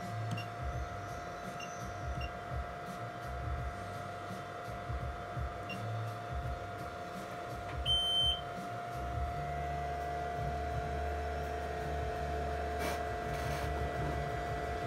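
BGA rework station running with a steady electrical whine; its touchscreen gives a few faint blips, then one clear beep about eight seconds in as the reflow heating profile is started, after which a steady low hum comes in from the machine.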